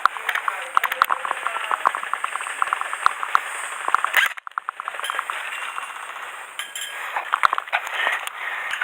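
Many sharp clicks and clacks, some in quick strings of several a second, with a short gap about four seconds in.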